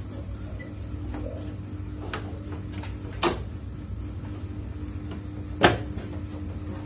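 Plastic front cover of a split air conditioner's indoor unit knocking twice against the housing as it is fitted back on, the second knock louder, over a steady low hum.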